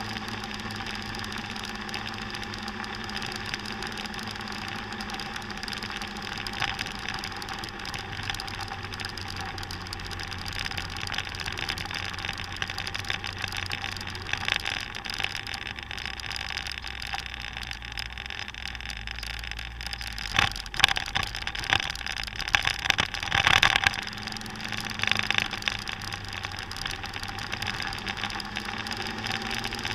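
Motor scooter engine running steadily under way, heard from a camera mounted on the scooter. Its low note drops about a quarter of the way in and picks up again near the end. A cluster of sharp rattling knocks comes about two-thirds of the way through.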